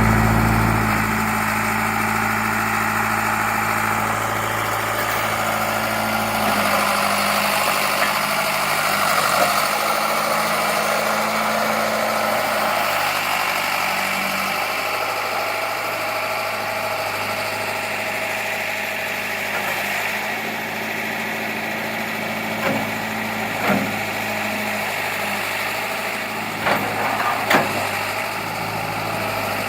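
1979 John Deere 410 backhoe's engine idling steadily, with a few short knocks near the end.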